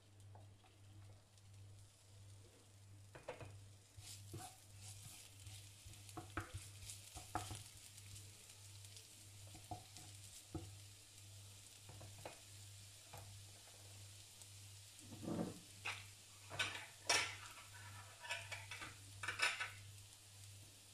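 Minced garlic and ginger sizzling in oil in a stainless steel frying pan, stirred with a wooden spatula that scrapes and knocks against the pan. The sizzle picks up about four seconds in, and the scrapes and knocks are loudest near the end, over a steady low hum.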